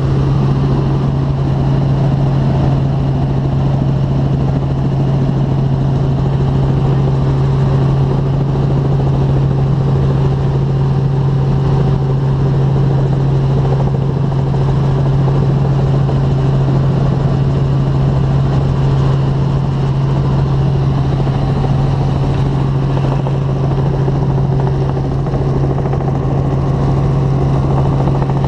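Helicopter in level flight heard from inside the cabin: a steady drone of engine and rotors with a strong low hum and a fainter higher tone over a constant rush of noise.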